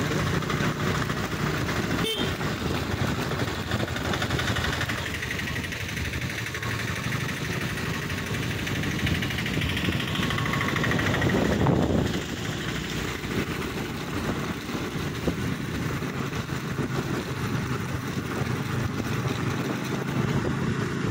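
A vehicle moving along a rain-wet road: steady engine and tyre noise. One sharp click comes about two seconds in. A swell of hiss builds around ten to twelve seconds in and cuts off suddenly.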